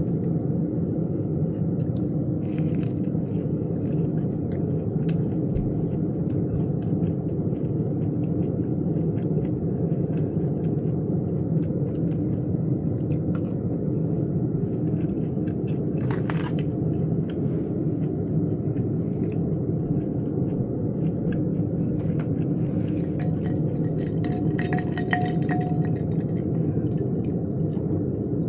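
Chewing and eating noises, with small scattered clicks, over a steady low rumble.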